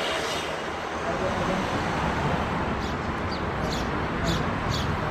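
Street traffic noise, a steady hum of passing vehicles. In the second half a run of short, sharp high ticks comes about twice a second.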